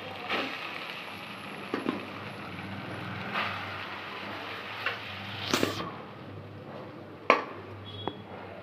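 A metal slotted spoon stirring cooked rice in an aluminium pot, with scattered knocks of the spoon against the pot, the sharpest about five and a half and seven seconds in, over a steady hiss.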